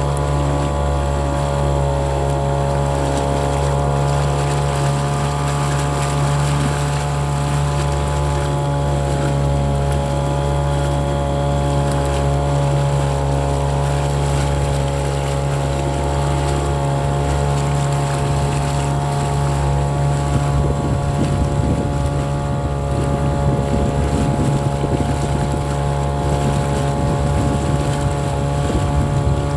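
Motorboat engine running at a steady speed, a constant even drone, with some rougher water or wind noise mixed in during the second half.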